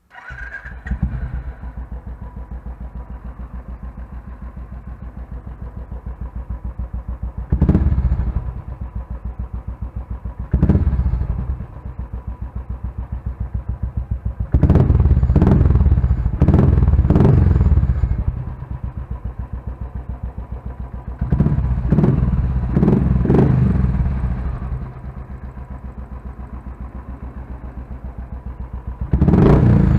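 Royal Enfield Thunderbird 350's single-cylinder engine, fitted with an aftermarket Wild Boar silencer, starting up and idling with a steady thump. It is revved up repeatedly, with a quick run of several blips in the middle, each time dropping back to idle.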